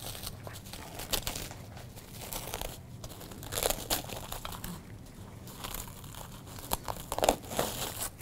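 Irregular crinkling of plastic with scattered light clicks and taps, as gloved hands handle food at a bowl and skillet.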